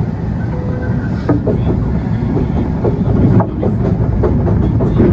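A loud, steady low rumble with irregular clicks and knocks scattered through it.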